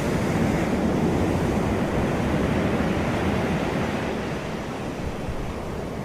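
Sea surf washing onto a beach, a continuous rushing that eases off a little in the second half.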